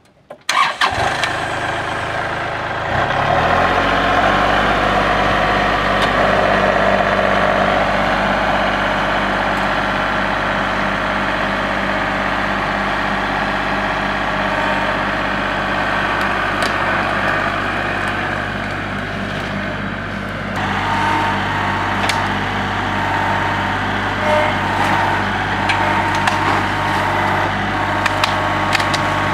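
Kubota L3901 compact tractor's three-cylinder diesel engine running, rising in pitch about three seconds in as it is throttled up and then holding a steady note. Near the end, scattered sharp cracks of dead branches as the front-loader grapple pushes into a brush pile.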